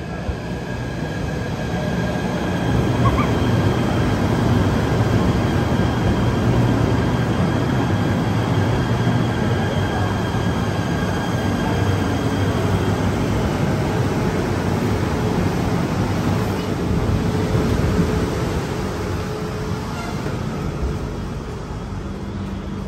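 KTM Komuter electric train pulling into the platform: a rumble of wheels on rails and a steady high whine that fades out about halfway through as the train comes to a stop.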